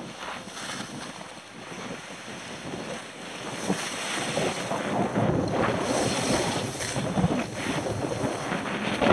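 Skis sliding and scraping over snow, with wind rushing across the camera's microphone, getting louder about a third of the way in.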